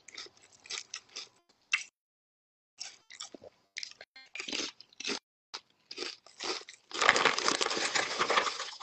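Close-up crunching and chewing of crisp snack chips: a series of short, sharp crunches. About seven seconds in comes a louder, longer stretch of crinkling as a hand rummages in the chip bag.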